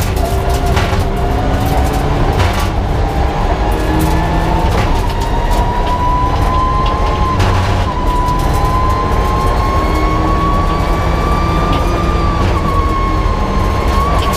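Mitsubishi Lancer Evolution IX rally car at speed on a stage, heard from inside the cabin: its turbocharged four-cylinder engine and road noise, with a whine that climbs slowly in pitch and dips briefly twice near the end. A few short knocks from bumps come through the body.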